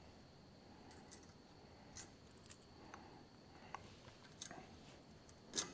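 Faint clicks and light metallic taps of small steel parts being handled, as split collets are fitted over the front hub studs, with one sharper click near the end.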